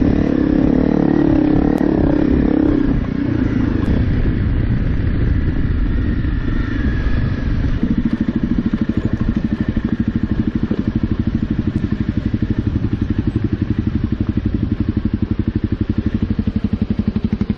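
Trail motorcycle engine running under way, revving and changing pitch in the first few seconds, then settling about eight seconds in into a steady, evenly pulsing drone.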